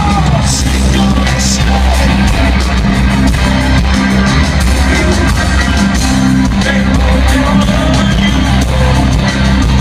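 Rock band playing live, heard from within the crowd: a loud, steady, bass-heavy wall of guitar, keyboards and drums.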